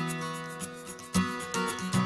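Instrumental music.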